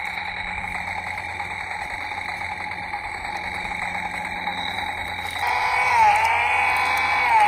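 Toy Stihl chainsaw running with a steady buzzing rattle from its small motor and plastic chain. About five and a half seconds in, its louder electronic engine sound comes on, a revving tone that wavers up and down in pitch.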